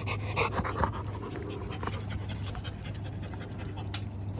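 A dog panting with quick, breathy breaths, loudest in the first second and fainter after.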